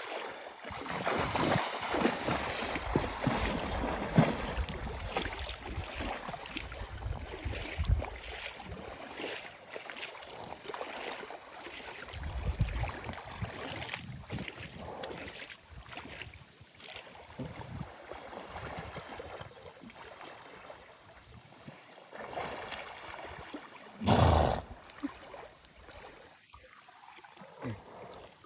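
Water sloshing and splashing irregularly as horses wade and swim, with wind noise on the microphone. A brief loud rush of noise about 24 seconds in.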